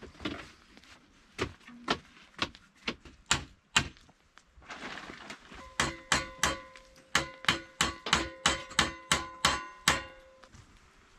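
Hammer blows with a metallic ring: a few scattered strikes, then from about six seconds in a quick, steady run of roughly three to four blows a second that stops near ten seconds.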